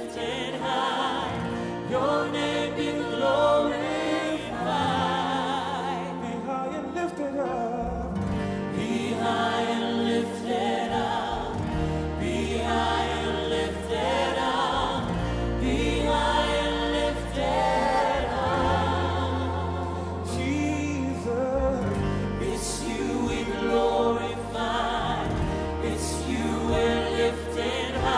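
Christian worship music: voices singing a song over instrumental backing with sustained bass notes.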